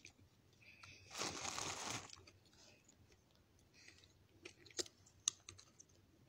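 Dry white clay shale stone being bitten and chewed: a longer gritty crunch about a second in, then a few sharp crunching clicks near the end.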